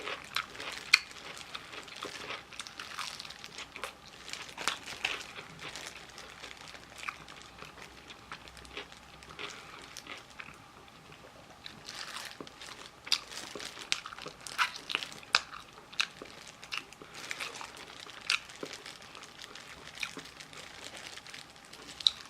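Close-up crunching and chewing of crispy Korean fried chicken, with many irregular sharp crackles and bites and some crinkling of plastic or packaging.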